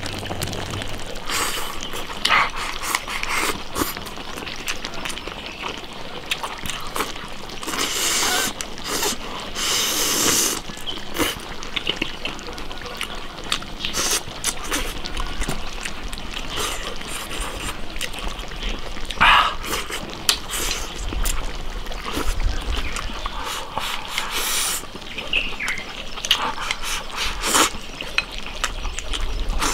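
A man eating saucy stew over rice from a bowl held to his mouth: chewing, slurping, and chopsticks clicking against the bowl in irregular bursts. Short animal calls sound now and then.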